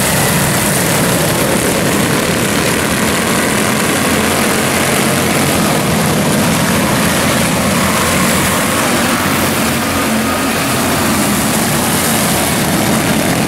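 A pack of quarter midget race cars racing together, their small single-cylinder engines making a steady, loud, buzzing drone.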